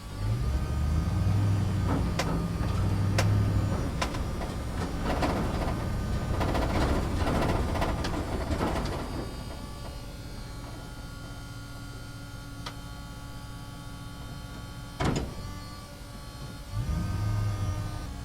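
Small electric motors and gearboxes of RC construction models whining as they run, starting and stopping. There is a rougher, noisier stretch in the middle and a sharp click about fifteen seconds in.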